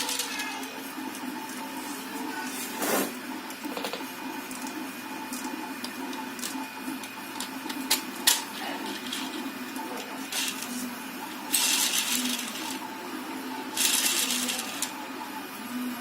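A small machine running with a steady whir, broken by a couple of sharp clicks around the middle and two short bursts of hiss near the end.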